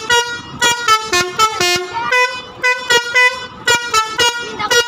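Telolet basuri musical air horns on a bus playing a rapid, tune-like run of short toots, mostly on one note and now and then stepping down to a lower one.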